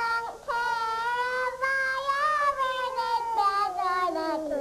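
A young child singing: a held note that breaks off briefly, then one long drawn-out phrase that wavers and slides down in pitch near the end.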